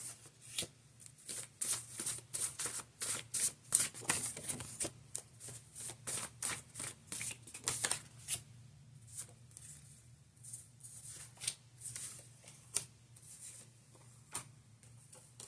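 Tarot cards being shuffled and handled: quick crisp flicks and riffles, dense for about the first half and sparser after.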